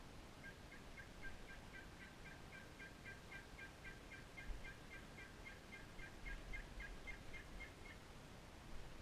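Faint, long run of turkey yelps: about thirty even notes at about four a second, stopping about a second before the end.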